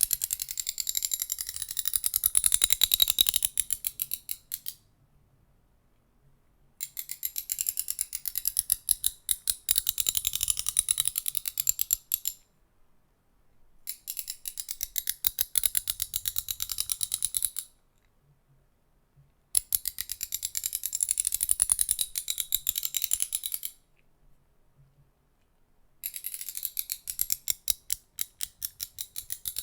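Rapid, evenly spaced clicking from a small object worked close to the microphone for ASMR. It comes in runs of a few seconds each, about five of them, with short pauses between.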